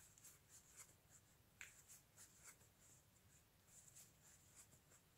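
Near silence with faint, scattered rustles and small ticks of a wooden crochet hook drawing thick plush chenille yarn through stitches.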